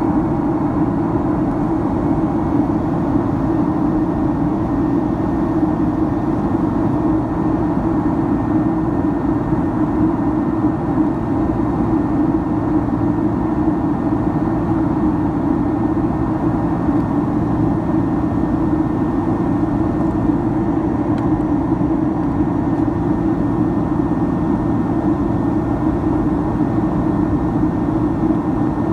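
Boeing 767-300ER in flight, heard from inside the cabin: a steady drone of the jet engines and the rushing air, with a faint steady whine above it.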